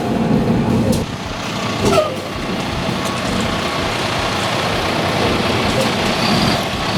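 Roll-off dumpster truck driving, its diesel engine and road noise heard from inside the cab, with a couple of light clicks about one and two seconds in.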